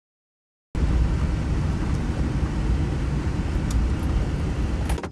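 Steady low rumble of a vehicle driving, heard from inside; it starts abruptly about a second in after a moment of dead silence.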